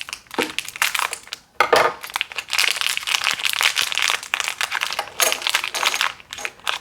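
Plastic packaging crinkling and rustling as it is handled, in a quick jumble of small crackles.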